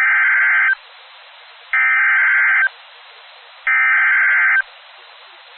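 Emergency Alert System SAME header: three bursts of warbling digital data tones, each about a second long, with fainter hiss between them, encoding the severe thunderstorm warning.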